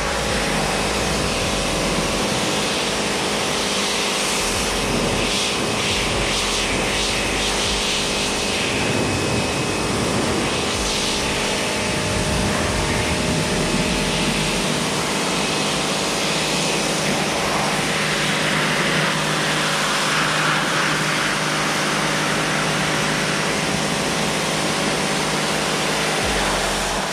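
Pressure washer running: the steady hum of its pump under the loud hiss of the water jet blasting mud off a car's body.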